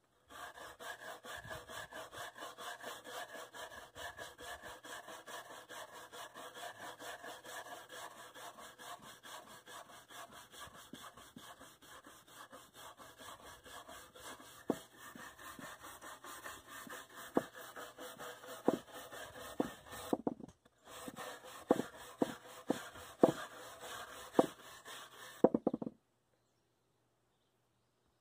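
Hand-held wire brush scrubbing fast back and forth over the charred surface of a shou sugi ban–burnt oak chair seat, scouring off the loose char to bring out the grain. Sharp knocks join in from about halfway and come more often near the end, a short pause comes about two-thirds through, and the scrubbing stops a couple of seconds before the end.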